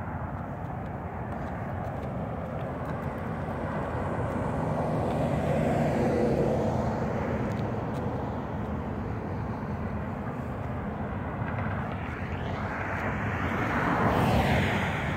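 Road traffic passing on a multi-lane road, a steady rumble and tyre hiss that swells and fades as vehicles go by, with one passing close near the end, its pitch dropping as it goes past.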